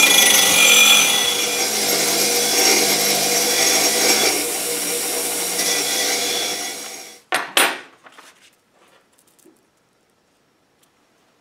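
Bench grinder running with a steel plate held against its wire wheel: a steady motor hum under a harsh, scratchy hiss as the plate is brushed. The sound cuts off suddenly about seven seconds in, followed by a couple of light clicks and then near silence.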